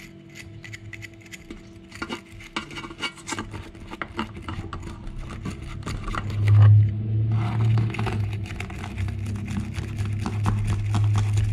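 Rapid scratching of a homemade steel-wire brush, made from frayed steel cable, scrubbing dirt from inside a small scooter carburetor, many quick strokes. A steady low hum runs underneath and gets louder a little past halfway.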